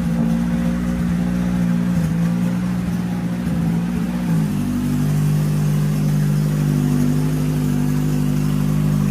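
A car engine held at steady, constant revs, its pitch stepping down slightly about halfway through.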